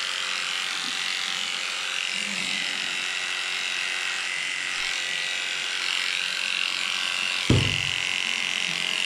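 Cordless pet hair clipper running steadily with a high hum. A short low thump comes near the end.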